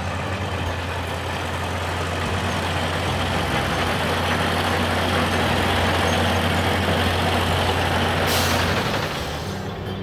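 Heavy truck engines running as the convoy drives, a steady low hum under a rushing noise, from a cartoon sound effect. A short air-brake hiss comes about eight seconds in, and the engine noise drops away soon after.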